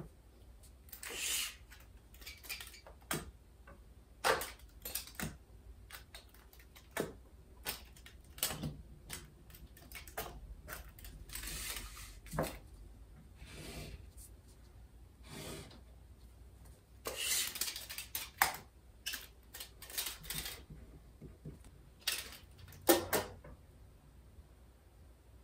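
A steel tape measure being pulled out and let back, giving irregular clicks and short rasping rattles, mixed with a pen scratching on paper.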